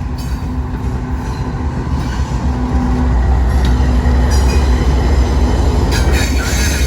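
Norfolk Southern manifest freight train with diesel locomotives rumbling past, growing louder. Near the end, high wheel squeal sets in.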